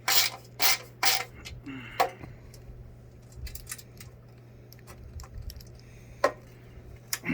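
Metal clinks and clicks from handling a metal sewing-table leg and its adjustment screws: a few loud clinks in the first two seconds, then lighter scattered clicks and one more sharp clink about six seconds in.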